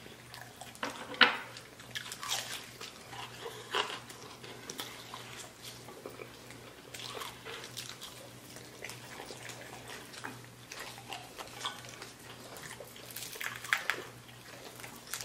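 Close-up eating of fried chicken wings: scattered bites, crunches and wet chewing and lip smacks, with a sharp click about a second in as the loudest, over a faint steady low hum.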